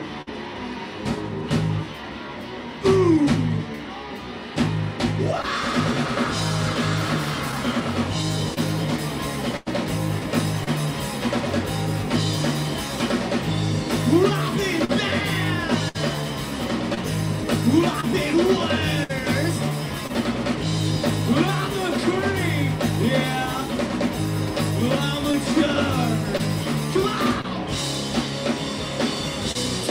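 A live rock band playing a song: electric guitars and a drum kit over a repeating low riff, with a voice singing.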